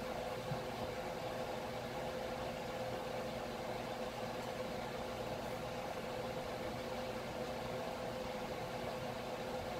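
A steady machine hum with a constant hiss underneath, unchanging throughout.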